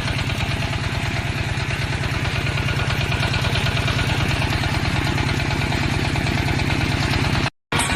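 28 hp single-cylinder-class diesel engine of a hydraulic drilling rig running steadily at an even speed, with a rapid regular firing beat. The sound drops out abruptly for a moment near the end.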